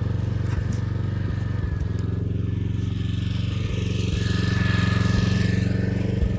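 Portable generator engine running steadily with an even low hum. Midway a hiss swells over it, with a thin whistle for about a second and a half.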